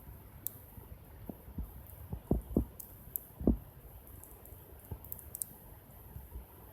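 Wood campfire crackling: scattered sharp ticks and a few louder dull pops.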